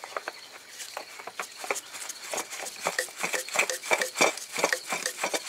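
Irregular light metallic clicks and taps, a few a second, from hand work under the Bronco's hood as a new Wix oil filter is fitted.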